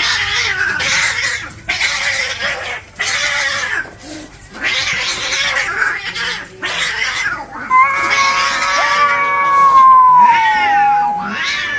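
Domestic cats in a fight: a run of loud hissing and spitting bursts with short breaks, then one long drawn-out yowl that slowly falls in pitch, and a shorter wavering yowl near the end.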